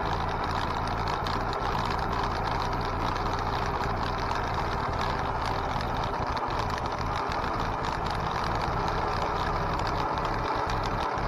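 A homemade 48-volt electric go-kart on the move along a rough lane: steady rushing noise of wind and tyres on the road surface, with light rattling.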